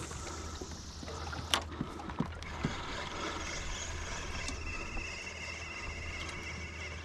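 Water trickling and lapping against the hull of a sea kayak moving over calm sea, over a steady low rumble. A few sharp clicks or knocks sound in the first three seconds, the loudest about a second and a half in.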